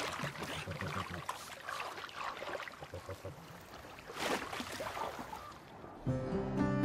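Water splashing and sloshing in irregular bursts, with low repeated animal grunts in the first second or so. Soft plucked-guitar music comes in near the end.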